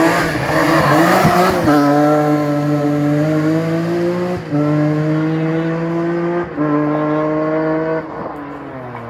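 BMW rally car taking a hairpin at race speed: a burst of tyre noise in the first second or two, then the engine at full throttle climbing through the gears, with upshifts about four and a half, six and a half and eight seconds in.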